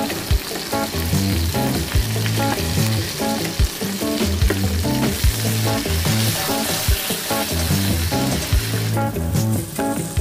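Pork fillet slices sizzling in hot oil in a frying pan as they are turned with metal tongs, over background music with a steady beat. The sizzle thins out about nine seconds in.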